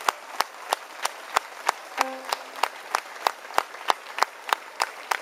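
Audience applauding, with hand claps falling in a steady rhythm of about three a second over the general clapping of the crowd.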